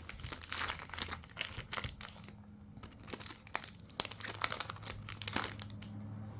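Foil trading-card booster pack being torn open and handled, irregular crinkling and crackling of the wrapper.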